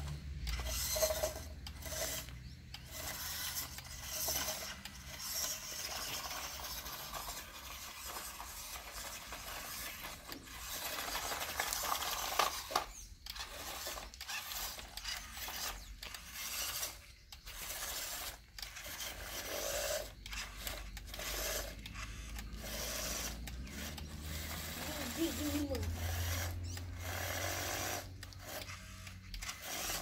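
Toy RC monster truck's small electric motor and gears whirring in short throttle bursts that start and stop many times, as it drives through wet mud.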